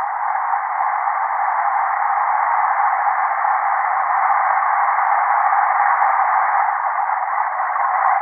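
Ceiling fan bearing running with a steady, unbroken whirring whine, the noise of a bearing in need of attention.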